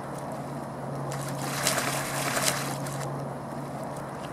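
Pool water splashing and sloshing around a floating bodyboard as dogs scramble on it, with a burst of splashes about two seconds in. A steady low hum runs underneath.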